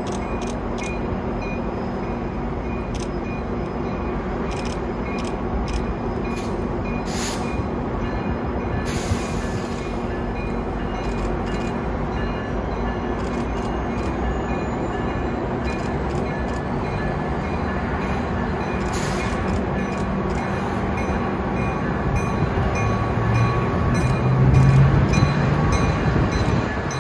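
CN freight train headed by EMD GP9-type diesel locomotives running with a steady engine rumble and hum. It grows louder near the end as a deeper engine tone comes in.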